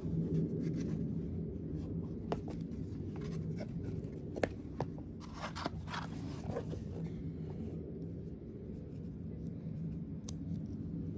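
Handling noise: a plastic tray insert and a zippered carry case being moved about, with scattered light clicks and short scrapes a few seconds in and one more click near the end, over a steady low background hum.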